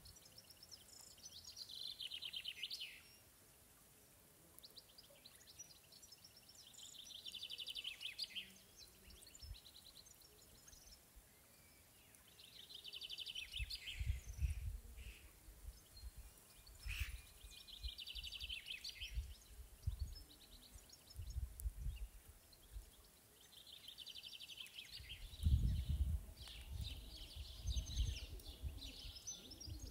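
A songbird sings the same short, descending trilled phrase over and over, every few seconds. Low gusts of wind rumble on the microphone now and then.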